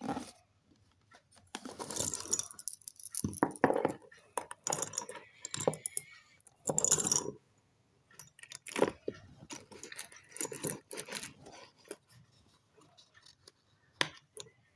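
Packaging being handled during an unboxing: irregular rustling and crinkling bursts with sharp clicks and taps, separated by short pauses.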